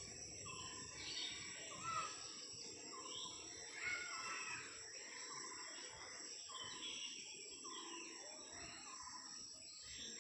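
Several small birds chirping and calling in short, overlapping notes, a few of them louder about two and four seconds in, over a steady high-pitched drone of insects.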